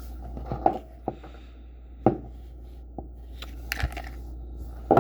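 A handful of sharp clicks and clacks, about six, as a KWC 24/7 Gen 2 blowback BB pistol is worked and handled during field stripping. They are irregular, with the loudest about a second in, about two seconds in, and at the end. A steady low hum runs underneath.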